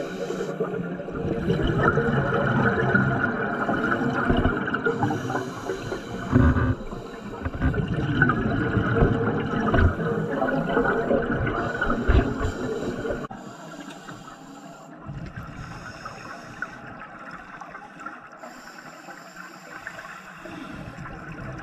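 Scuba diver's regulator heard underwater: exhaled air bubbling and gurgling loudly for the first dozen or so seconds, then quieter, with short hisses at intervals.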